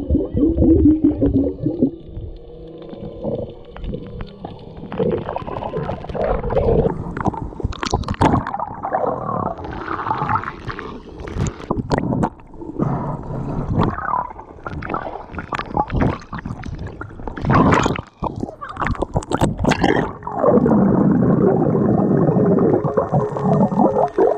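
Muffled underwater sound picked up by a camera held below the surface: water gurgling and rumbling against the mic, with scattered sharp clicks and knocks, and a louder rushing stretch near the end.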